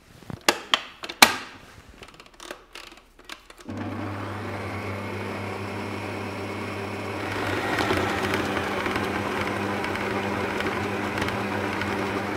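Kenwood stand mixer's motor running with the flat beater working cookie dough, a steady hum that grows louder about seven seconds in. Before it starts there are a few knocks and clicks as the mixer head is lowered.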